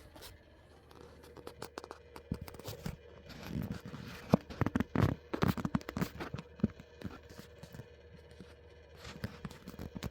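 Irregular clicking noises, a rapid scatter of short clicks and knocks with some scraping, densest in the middle, over a faint steady hum.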